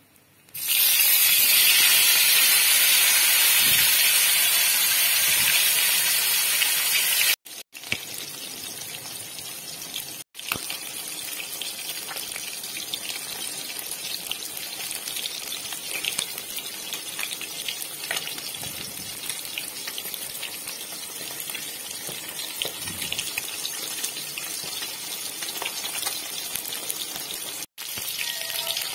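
Rohu fish pieces frying in hot oil in a wok: a loud sizzle for the first seven seconds or so, then a steadier, quieter sizzle with small crackles, broken by a few brief dropouts.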